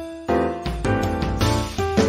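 Background music, with a bass line and fuller accompaniment coming in about half a second in.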